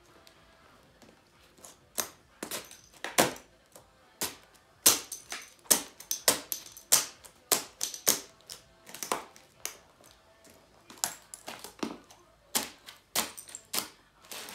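High heels stamping and grinding on a laptop's plastic keyboard: a fast, irregular run of sharp clicks and clacks, several a second, starting about two seconds in, as keycaps are knocked loose.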